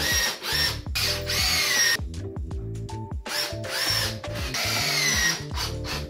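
Cordless drill running in three short bursts into the side panel of a closet shelving unit, with a pause of about a second after the second burst, while the units are fastened together.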